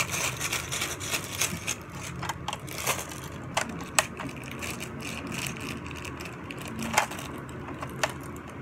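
Small plastic toy pieces and a crinkly plastic bag being handled: scattered sharp clicks and rustling, the loudest clicks about four and seven seconds in, over a low steady hum.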